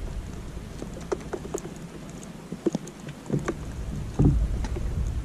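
Low rumble of wind and water around a small rocking boat, with scattered small clicks and ticks as hands handle a sabiki rig and take horse mackerel off the hooks. The rumble swells again about four seconds in.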